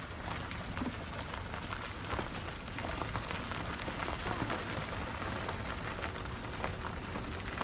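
Continuous crackling crunch of a gravel path under movement, over a steady low rumble.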